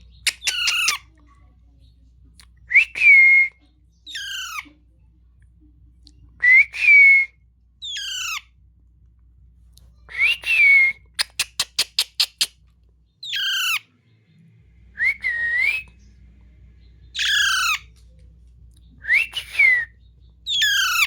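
A parrot calling over and over, a pair of calls about every three and a half seconds: a clear whistle-like note that rises and then levels off, followed by a harsh call sliding down in pitch. About halfway through comes a quick run of about eight clicks.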